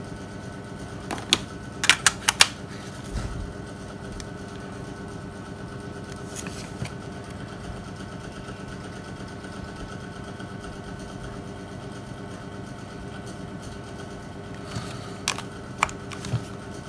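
Sharp plastic clicks from a Nokia 6600's casing being handled and its back cover fitted, a cluster of clicks a second or two in and another near the end, over a steady background hum.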